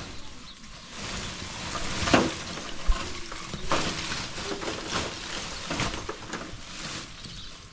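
Lumps of charcoal tipped out of a woven plastic sack into a metal tray, rattling and clattering as they fall, with the sack rustling. Several louder clatters come through the middle as bigger pieces land.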